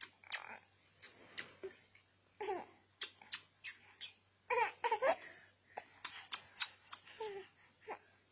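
A baby giving short, high-pitched babbling squeals and coos, with many small sharp clicks in between.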